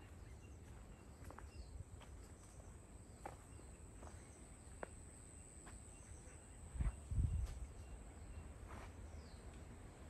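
Tropical forest ambience: a steady, thin, high-pitched insect whine with scattered light clicks and soft footsteps. A couple of loud, low thumps come about seven seconds in.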